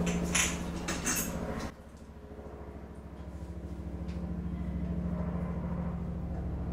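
Metal clinks and scrapes of a wrench on a chrome toilet flush valve as it is loosened from its supply pipe, a few sharp ones in the first second and a half, over a steady low hum. After that, mostly the hum remains as the valve is turned off by hand.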